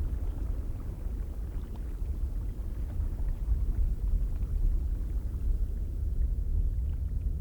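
Icelandic geyser ambience: a low, steady rumble with faint scattered ticks above it.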